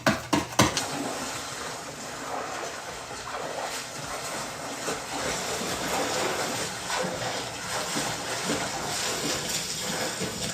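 A steady rush of water, with a few sharp knocks in the first second.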